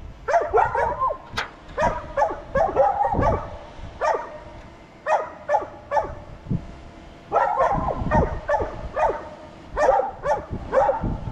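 A dog barking repeatedly, short barks coming in quick clusters with brief pauses between them.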